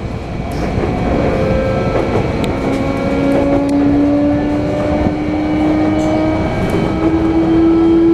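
Sotetsu 8000 series electric train running, its Hitachi IGBT-VVVF inverter and traction motors giving a whine that rises slowly in pitch as the train accelerates, stepping up once near the end, over the rumble of the wheels on the track, heard inside the passenger car.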